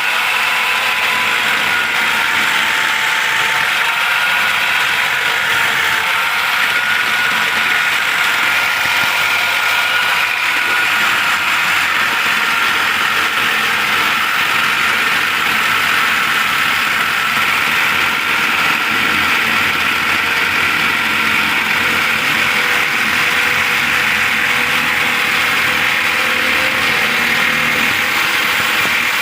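A machine running steadily: an even whirring noise with a faint, slightly wavering whine.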